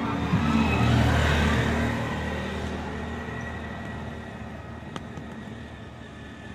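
A motor vehicle passing on the street, loudest about a second in and slowly fading. About five seconds in there is a single sharp knock: a hard-shelled wood apple dropped onto the concrete pavement to test its ripeness.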